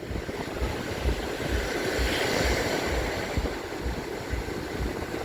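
Wind buffeting the microphone in uneven low thumps over a steady rushing hiss of sea surf, which swells a little about two seconds in.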